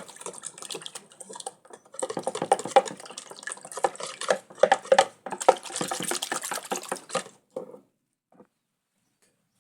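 Water running and splashing in irregular spurts, with small clicks and knocks mixed in, stopping about seven and a half seconds in.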